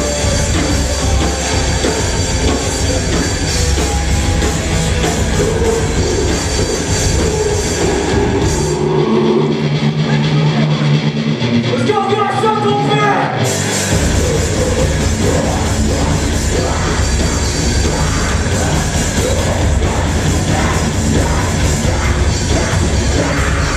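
Live rock band playing loud, heavy rock with electric guitars, bass, drums and sung vocals. About nine seconds in, the drums and low end drop out for a few seconds, leaving a few sustained and then rising notes, before the full band comes back in.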